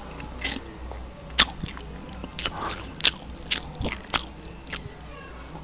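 A mouth chewing rice noodles, close-miked, with a dozen or so sharp wet clicks and smacks at irregular intervals.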